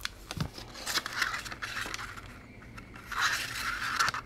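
A strip of cardstock rustling and scraping as it is handled and slid into a handheld paper punch, in two stretches: about a second in, and louder again about three seconds in.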